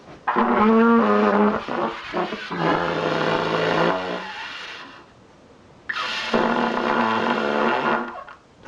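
Trumpet played in two long, loud stretches of a few held notes each, the pitch stepping down a little within them. The first runs about four and a half seconds; after a short pause the second runs about two seconds.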